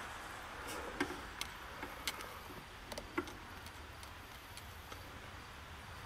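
A handful of light, sharp clicks and ticks, scattered over the first three and a half seconds, as a wiring harness connector is handled and probed during a glow plug relay circuit test, over a faint steady background hum.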